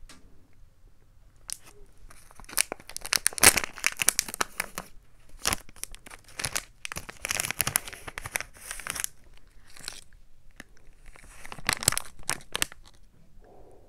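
Silvery plastic ice cream wrapper being torn open and crinkled in several irregular runs of crackling, loudest about three and a half seconds in and again near the end.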